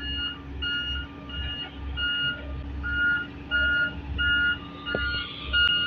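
Backup alarm on heavy road-building machinery beeping about one and a half times a second, over the low rumble of diesel engines.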